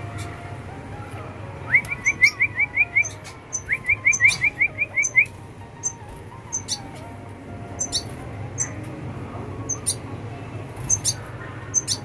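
Red siskins chirping. Short high chirps come throughout, and two quick runs of about eight repeated notes each are heard, the first about two seconds in and the second about four seconds in.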